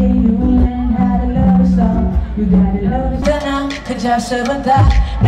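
Music with a singing voice; a fuller, brighter layer of instruments comes in about three seconds in.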